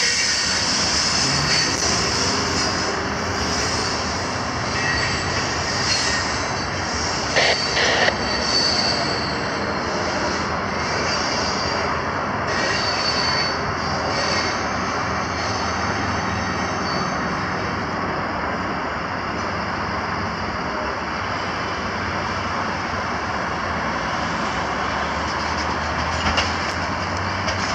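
Loaded coal train's hopper cars rolling away along curving track, wheels squealing over a steady rail rumble. Two brief sharp clanks come about seven to eight seconds in.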